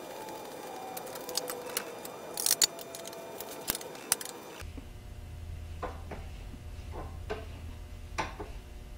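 Scattered sharp metallic clicks and clinks of hand tools on the steel shaft and key of a Bridgeport milling machine's X-axis power feed, as a socket ratchet and pliers work the key out of the shaft; the loudest clinks come about two and a half seconds in. A faint low hum comes in about halfway through.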